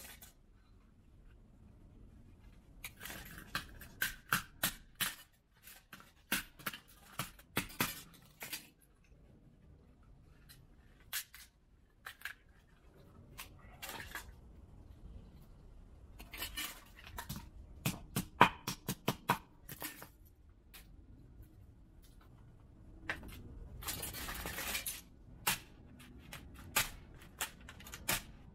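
Plastic and electronic parts of a smashed DJI FPV goggles headset being broken up: irregular clusters of sharp cracks, snaps and knocks, the loudest a little past the middle, with a longer crunching, scraping stretch near the end.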